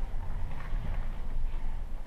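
Footsteps on a debris-covered floor, a few soft steps over a steady low rumble.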